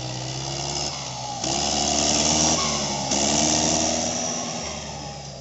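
Turbocharged Mahindra 585 tractor's four-cylinder diesel engine running under load while driving a rotavator through the soil. It grows loud with a strong hiss about a second and a half in as the tractor comes close, wavers in pitch, then fades near the end.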